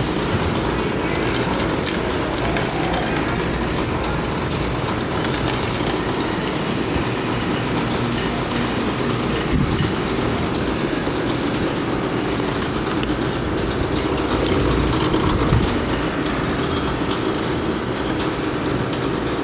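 Steady din of a busy arcade, many game machines sounding at once in one constant mass of noise.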